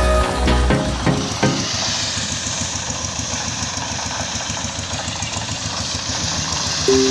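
Background music with a beat fades out about a second and a half in, leaving a steady hissing noise; music with held notes comes back in right at the end.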